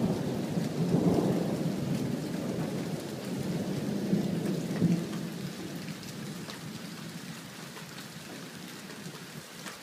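Thunderstorm: steady rain with low rolls of thunder about a second in and again around four to five seconds, the whole fading out gradually toward the end.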